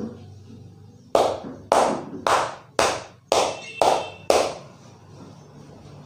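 Percussive hand strikes of a barber's head massage: seven sharp slaps in a steady rhythm, about two a second.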